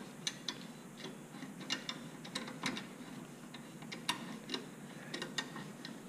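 C-clamp screw being turned by hand to push a rear brake caliper piston back, giving irregular light metallic clicks and ticks, about two or three a second.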